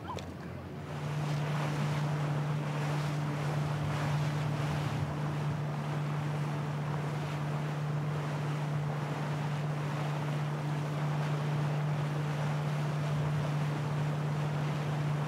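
A boat's engine running at a steady, unchanging low drone, with wind buffeting the microphone and water noise.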